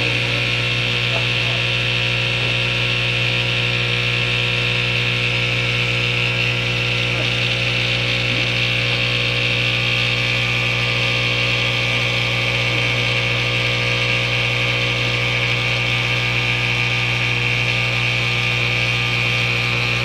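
A running appliance motor: a steady electric hum with a constant hiss above it, unchanging throughout.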